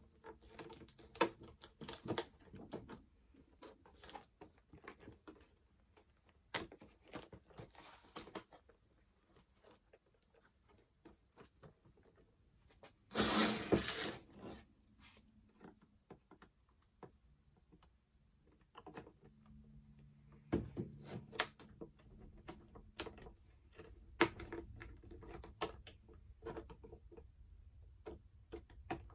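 Hands opening a doll's cardboard-and-plastic box: scattered clicks, taps and rustles of the packaging being handled, with a longer, louder rustle about thirteen seconds in.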